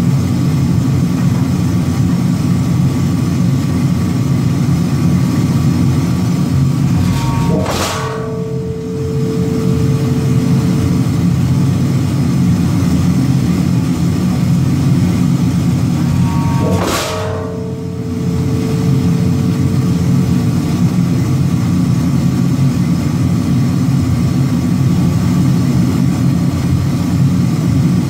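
Heavy forging machine running with a steady low drone, striking twice about nine seconds apart while forging a hot chisel blank; each blow is followed by a clear metallic ring that fades over a few seconds.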